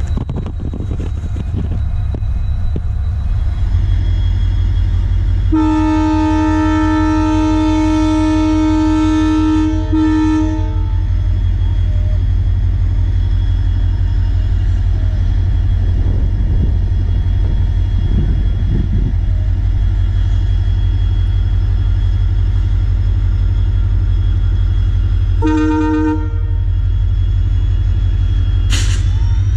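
Train locomotive horn sounding one long blast of about five seconds, then a short toot later on, over the steady rumble of a running train.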